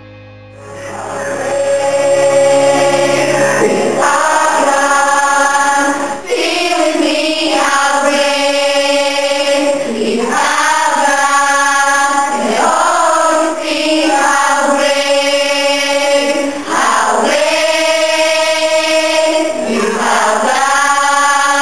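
A church congregation singing together as a choir, held notes in swelling phrases about two seconds long; the singing comes in about a second in.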